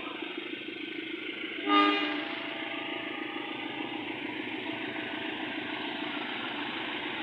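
A single short blast of a train horn about two seconds in, over a steady engine drone.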